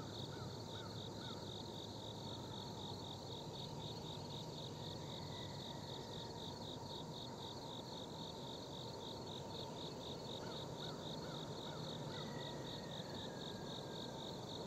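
An insect chirping in a steady, rapid pulsing rhythm. Underneath is a faint, even low rumble, the distant diesel locomotives of an approaching freight train, an SD70AC and a CW60AC, accelerating back to track speed.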